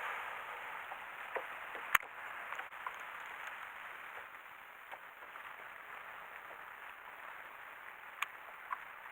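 Water lapping and splashing gently against a kayak's hull, with a sharp knock about two seconds in and another near the end.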